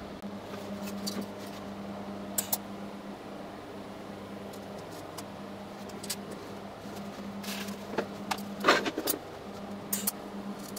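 Steady low hum with scattered clicks and short rustles as a TIG welding torch and its cable are picked up in leather welding gloves and set against the work, the loudest rustle a little after the middle.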